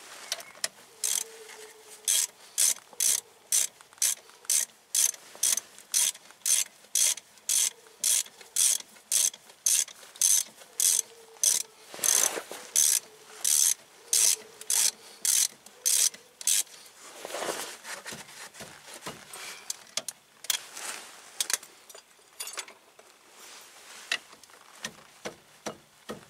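Hand ratchet wrench clicking in steady back-and-forth strokes, about two a second, tightening a brake caliper bolt. The ratcheting stops about 16 seconds in, followed by a few scattered clicks and knocks.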